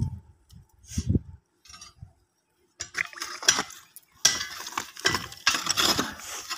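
Handfuls of earth dropped onto a wrapped body in a grave land with two dull thuds. From about three seconds in, a long-handled tool scrapes and drags stony soil into the grave, with continuous crunching and the clink of small stones and gravel.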